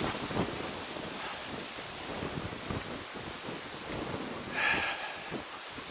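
Gusty wind buffeting the microphone, with irregular low rumbling thumps, and a short higher sound a little under five seconds in.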